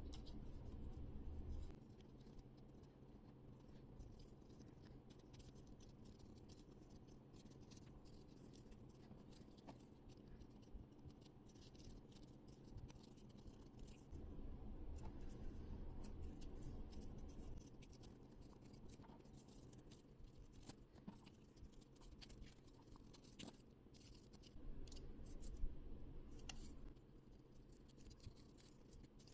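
Faint handling of stiff paper puzzle pieces: scattered small clicks and scratches as the card pieces of a 3D paper art puzzle are worked and fitted together.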